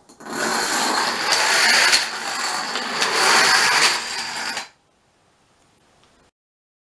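A chain of dominoes toppling one after another: a dense, fast clatter of small clicks for about four and a half seconds that swells twice and then stops suddenly.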